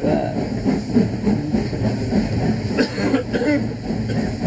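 Steady running noise inside a moving steam-hauled passenger coach: the carriage rumbling and rattling over the rails.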